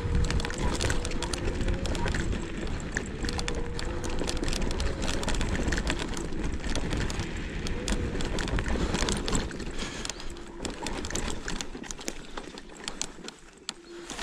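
Joyor Y6S electric scooter ridden over a rough, rooty dirt trail: a steady rumble and rattling from the wheels and frame, with a faint electric-motor whine. About eight to ten seconds in, the front wheel digs into soft, loose sand and the rider is thrown over the handlebars. After that the rattling dies down to quieter scuffing and handling noises, ending with a sharp knock.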